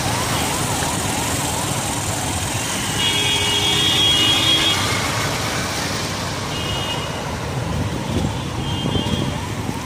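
Road traffic on a flooded street: vehicles driving through floodwater make a steady wash of engine and water noise. Horns sound several times, and a fast, repeating rising warble runs through the first three seconds.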